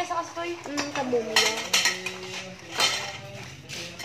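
Metal clothes-rack tubes clinking and knocking against one another as they are handled, with a few sharp metallic clinks spread across the few seconds.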